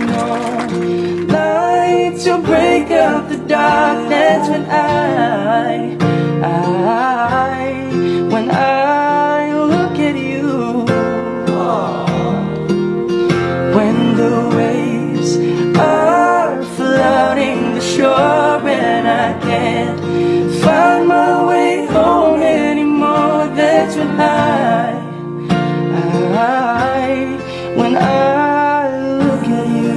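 A male voice singing a ballad melody over an acoustic guitar played along with it.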